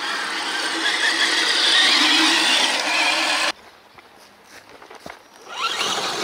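Electric motor and gear whine of a Traxxas TRX-6 6x6 RC truck driving through tall grass, cutting off abruptly after about three and a half seconds. Near the end another RC crawler's motor whine rises as it speeds up.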